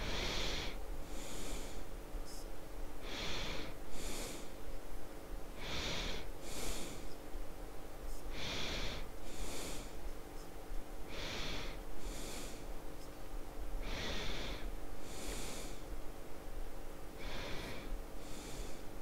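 A person breathing slowly and evenly, in and out, about seven breaths roughly three seconds apart, over a faint steady electrical hum.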